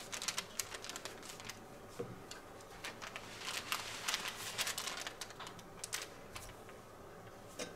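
Faint rustling and scattered light taps as stabilizer-backed fabric is smoothed by hand and pressed with an iron.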